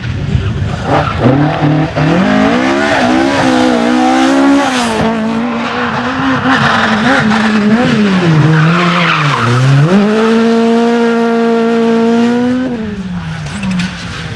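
A rally car driven hard on a stage: its engine revs climb and drop several times as it shifts and brakes, with tyre squeal in the middle. From about ten seconds in the revs are held steady for a couple of seconds, then fall away.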